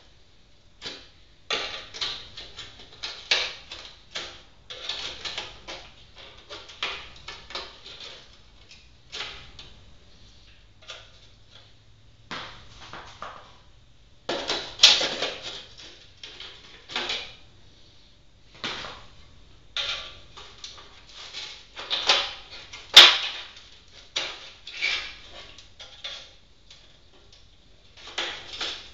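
A screwdriver and wire cutters scraping, prying and clicking against the metal tabs that hold the glass window in a gas grill lid, in short, irregular strokes with pauses between them, and one sharp click well past the middle.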